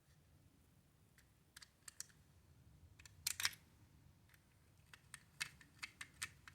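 Faint, irregular small clicks and taps of a triangular-bit screwdriver and tiny screws against a small plastic toy as the screws are driven back in. The loudest clicks come in a tight pair about halfway through, followed by a quick run of clicks near the end.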